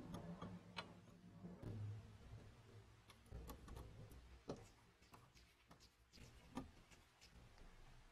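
Faint, irregular clicks and taps of small metal parts being handled and screwed together: a screwdriver turning the screws that hold a serrated cutter blade onto a tape gun's steel frame, with a few sharper clicks.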